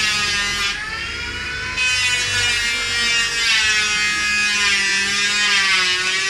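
A steady electric motor hum with a buzzing, many-overtoned tone whose pitch drifts slowly up and down, dipping in level for about a second near the start.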